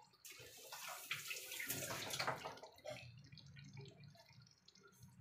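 Broth of arroz valenciana simmering in an electric pot, a wet bubbling hiss that is strongest for the first three seconds and then thins to scattered faint crackles.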